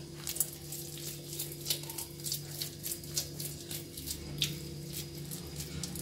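Very slack, wet bread dough squelching and smacking in wet hands as a piece is pulled from the basin and shaped into a ball, with irregular small wet clicks and slaps. A steady low hum runs underneath.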